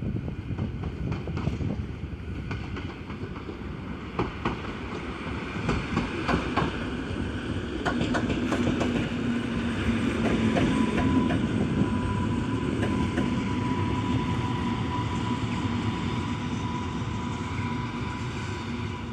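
Electric multiple unit rolling through the station, its wheels clicking over rail joints. Then comes a steady low hum, with a higher whine laid over it from about ten seconds in until shortly before the end.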